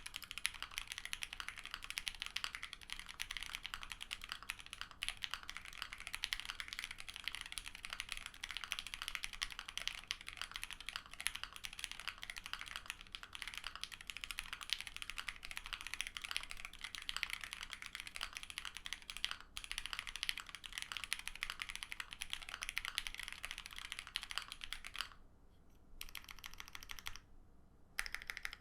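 Custom ai03 Vega mechanical keyboard with lubed Lavender linear switches on a full POM plate and GMK Modern Dolch 2 keycaps, typed on fast and continuously. About 25 seconds in the steady typing stops, and a few separate presses of the modifier keys follow.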